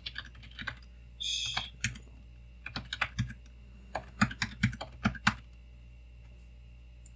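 Computer keyboard being typed on in short bursts of keystrokes, stopping about five seconds in. A brief breathy hiss comes about a second in.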